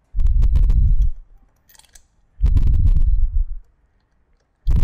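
Ratchet wrench on a spark plug socket clicking in three bouts of about a second each, backing a spark plug out of the rear cylinder of a Victory V-twin. Each bout is a quick run of clicks over a low rumble of the tool working against the engine.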